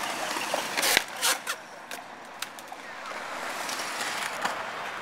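Skateboard wheels rolling on concrete, with a few sharp clacks of the board about a second in.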